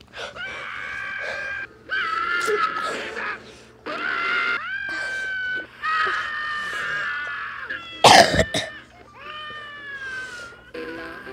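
Animated cartoon characters screaming, a string of shrill held screams a second or two each with short breaks between them. A sudden loud crash comes about eight seconds in.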